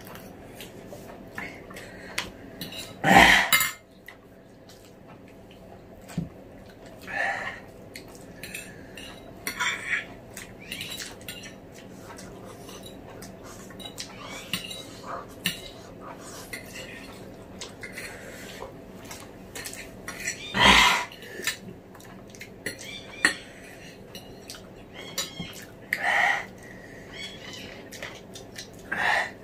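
Forks clinking and scraping on glass plates as two people eat noodles, many small clicks throughout. A few louder, sharper sounds stand out, the loudest about three seconds in and again about twenty seconds in.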